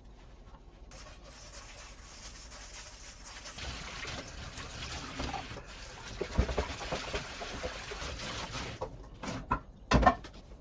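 Kitchen tap running into a stainless-steel sink while dishes are rinsed and scrubbed under it, with scattered clinks and knocks of dishware and a louder knock near the end.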